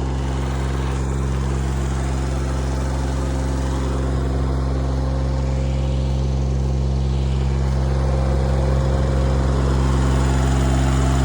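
An engine running steadily at an even speed, a low constant hum that grows slightly louder toward the end.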